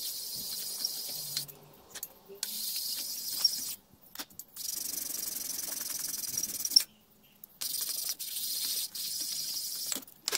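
Aluminium Polini cylinder head's gasket face being rubbed by hand on 240-grit abrasive paper laid on a flat tile: a dry scraping hiss in stretches of one to two seconds with short pauses. The rubbing flattens the face and takes out its scoring.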